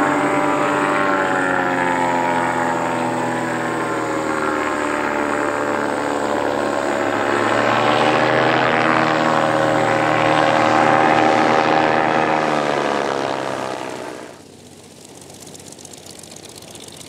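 Single-engine light aircraft's piston engine and propeller droning as it flies in to land, the pitch sinking, rising and falling again. About fourteen seconds in the drone cuts off suddenly, leaving a much quieter, low sound.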